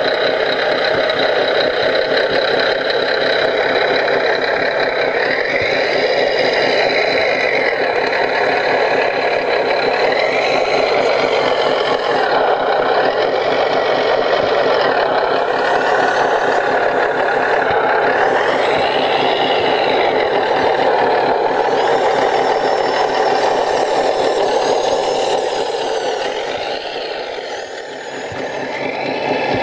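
Electronic diesel-engine sound from the sound module of an RC-scale CAT 963D track loader, running with a steady rhythmic chug, while a whine rises and falls several times as the loader tracks off the trailer.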